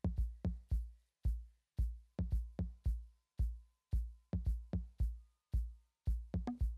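Background music: a drum beat of deep, sharp hits, two to three a second.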